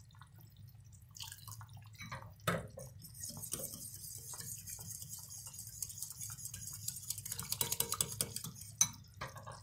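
Wire whisk beating egg yolk and lemon juice in a ceramic bowl, tempering it with hot soup broth: a fast run of light ticking and swishing from about three seconds in until near the end, with a few sharp clinks of metal on dishes before and after.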